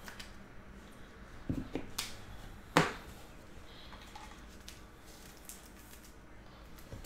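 Trading cards being handled between the fingers: a few short clicks and light rustles of card stock, the sharpest click a little under three seconds in, over a low steady room hum.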